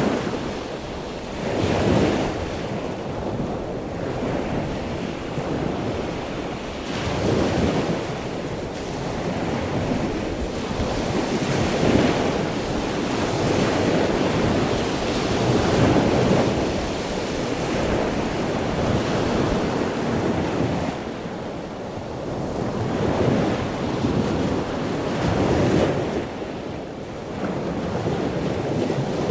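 Ocean waves breaking and washing in, swelling and easing every few seconds, with wind buffeting the microphone.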